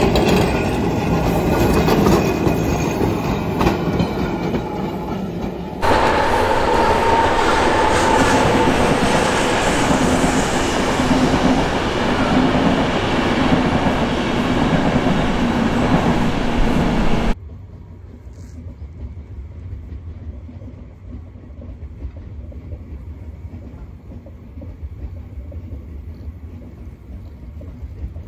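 Electric passenger trains running past on the tracks: a loud, close pass-by with steady rail noise, then after a sudden drop a train crossing a viaduct further off, heard as a quieter low rumble.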